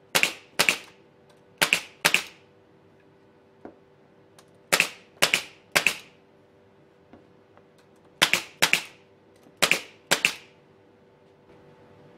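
Bostitch nail gun firing eleven times in quick pairs and threes, each a sharp crack, tacking small wooden blocks into a hardwood frame.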